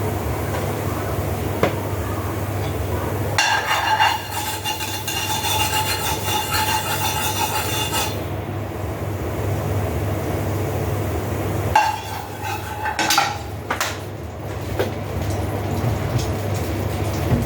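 Cookware and utensils handled: metal scraping and clinking in stretches lasting a few seconds, with a few sharp knocks, over a steady low hum.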